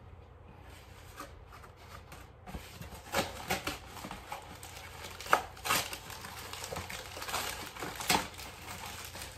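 Plastic packaging being handled, crinkling and crackling in irregular spurts after a quiet first two seconds, the loudest crackle about five seconds in.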